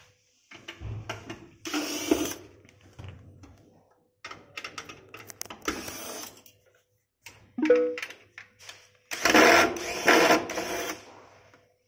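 Corded electric screwdriver whirring in several short runs as it backs out the screws holding the motor to a kitchen chimney's blower housing. The longest and loudest run comes about nine seconds in.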